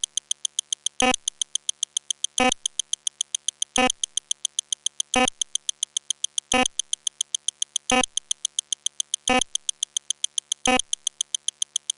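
Sped-up counter sound effects: a rapid, even train of short high-pitched electronic ticks, about seven a second, with a fuller, deeper click about every second and a half.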